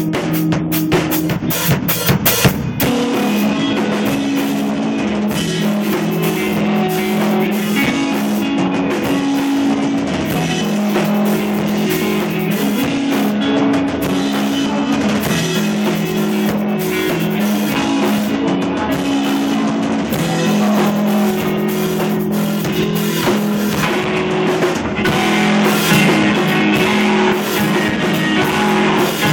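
Live rock band playing an instrumental passage on electric guitar and drum kit. A rapid run of drum hits opens it, then the guitar holds chords that change every second or two over a steady drum beat.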